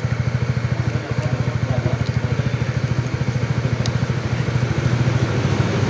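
An engine idling steadily, a fast even pulse, with a couple of faint light clicks.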